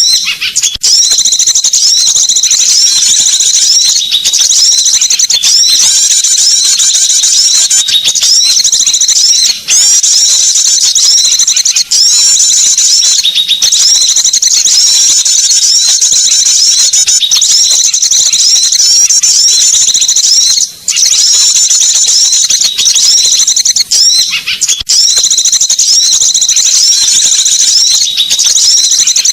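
Small-bird lure call (suara pikat): dense, high-pitched chirps and trills from small songbirds, repeating over and over as a looped recording with only brief breaks.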